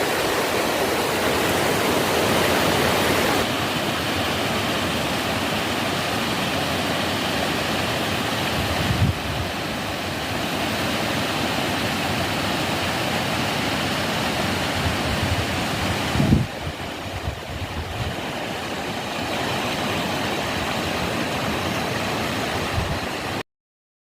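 Mountain waterfall pouring, a steady rush of falling water, broken by two brief low thumps about a third of the way in and again past the middle; the sound cuts off abruptly near the end.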